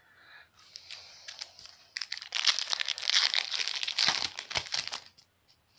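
Trading-card pack wrapper crinkling and tearing as the pack is opened, with light crackles at first and a dense burst of crackling from about two seconds in that lasts roughly three seconds.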